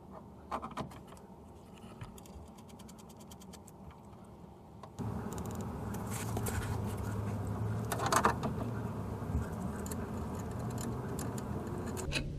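Hand tools working on metal steering parts: light clicks and a run of quick small clicks. About five seconds in, a steady low hum begins, with a few louder metal clanks over it.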